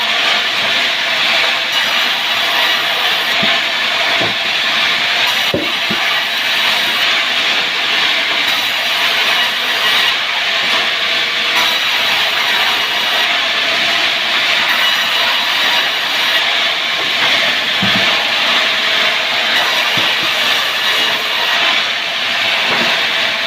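Power wood saw running steadily through timber, a continuous loud grinding noise with a few faint knocks.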